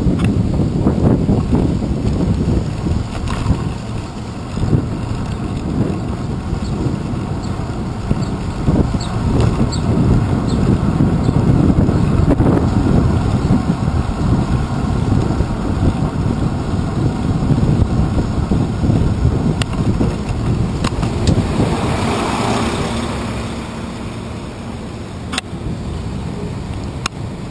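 Low rumble of wind buffeting and road vibration on a handlebar-mounted GoPro Hero 2 as a bicycle rides through city traffic, mixed with nearby vehicle engines. There are a few sharp clicks, and a brief rushing swell comes about 22 seconds in. The rumble eases near the end as the bike slows behind a van.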